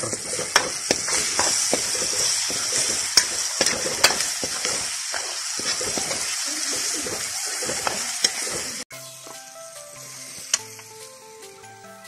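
Tomatoes and masala sizzling in a hot kadai, with a metal ladle scraping and knocking against the pan as they are stirred. About nine seconds in, the sizzling cuts off abruptly and soft background music plays.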